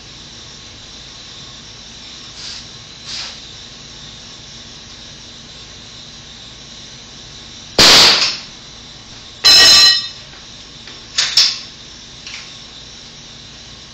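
Fastening tool firing into the wooden bottom plate of a basement stud wall on the concrete floor: two loud, sharp shots about a second and a half apart, the second ringing briefly, then a third, smaller shot. A few faint knocks come before and after them.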